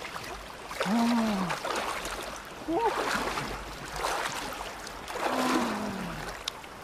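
Steady rush of river water, with three short wordless vocal sounds that rise and fall in pitch: about a second in, near three seconds, and about five and a half seconds in.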